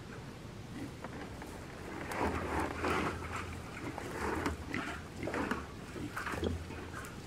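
Pigs grunting: a series of short, irregular grunts beginning about two seconds in.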